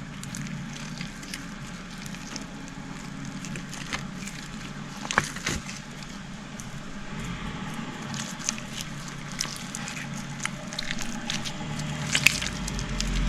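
Slime being handled and squeezed, giving scattered small wet clicks and crackles over a steady low hum, with a sharper pop about five seconds in and another near the end.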